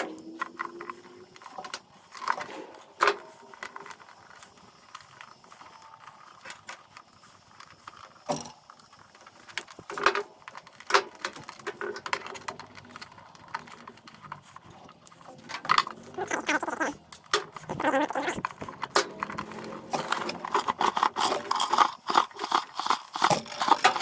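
Irregular clicks, taps and rattles of hand tools and small metal parts being handled while a power cord reel is worked on, sparse at first and busier and more rapid in the second half.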